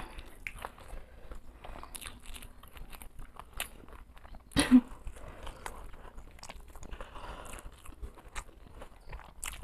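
Close chewing and biting of fried potato chop (aloo chop): soft mouth clicks and light crunches throughout, with one louder sudden burst about halfway through.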